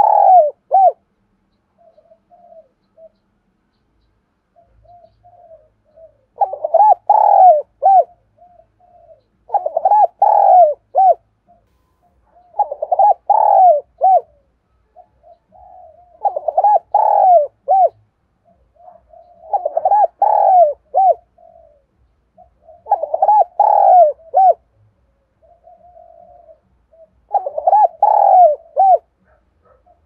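Spotted dove cooing loudly and close by, about eight multi-note phrases repeated every three to four seconds, with softer short notes between them. This is the bird's territorial challenge call, the kind used from a decoy bird to provoke and lure wild doves.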